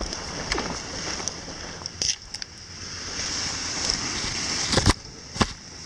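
Wind buffeting the microphone as a steady rushing noise. Near the end come a few sharp knocks from the camera being handled.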